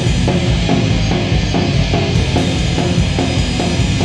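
Loud rock music with a steady, driving drum-kit beat.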